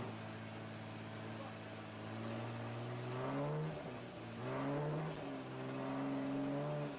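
Race car engine heard from inside the stripped cabin, running at a steady low pitch, then revving up about two seconds in, dipping briefly, and climbing again to hold a higher note.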